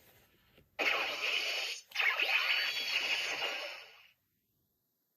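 Toy transformation belt playing an electronic sound effect through its small speaker: a hissing, whoosh-like burst of about a second, a brief break, then a longer burst of about two seconds that fades out and stops.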